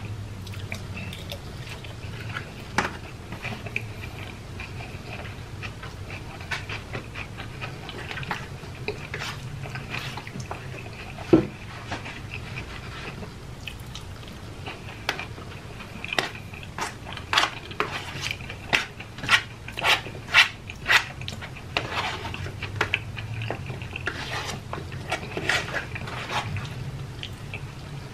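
A person eating close to the microphone: chewing and wet mouth smacks, with a fork clicking and scraping in plastic takeout containers. A sharp knock comes about 11 seconds in, and near the middle a run of louder smacks comes about two a second.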